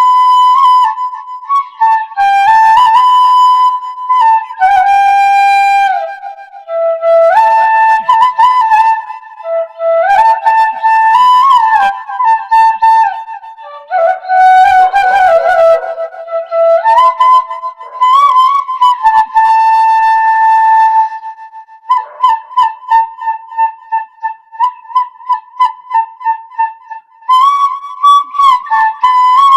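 Bansuri (Indian bamboo flute) playing a slow, emotional solo melody in held notes that step and slide up and down, with a run of quick repeated notes in the later part and no accompaniment.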